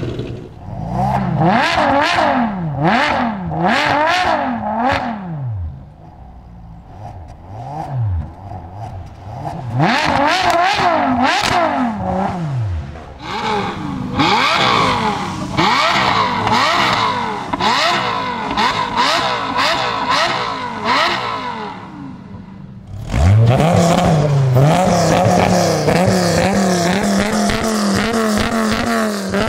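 Supercar engines revved in place, one after another. First a Hennessey Chevrolet Camaro SS V8 is blipped repeatedly, each rev rising and falling quickly. Then a Lamborghini Gallardo Spyder V10 is blipped, and from about 23 seconds in a Dodge Viper GTS V10 is revved up through its side-exit exhaust, held high for several seconds and let fall near the end.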